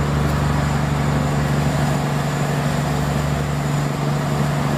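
Ship's engine running close by: a loud, steady, noisy drone with a constant low hum.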